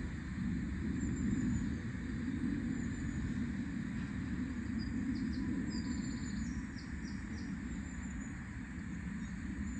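Steady low rumbling outdoor background noise, with a few faint high bird chirps around the middle.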